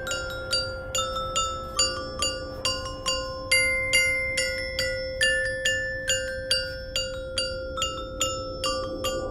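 Music: a mallet percussion instrument, bell-like like a glockenspiel, playing a steady run of single struck notes, a little over two a second, each ringing on, over a steady held low tone.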